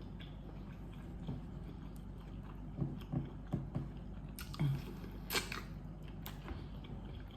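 A person chewing food close to the microphone: soft wet mouth clicks, then a few louder bites and smacks from about three seconds in.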